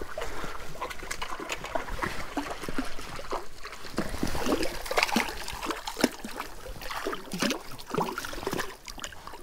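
A hooked fish thrashing at the water's surface against the rocks: a run of irregular splashes and slaps.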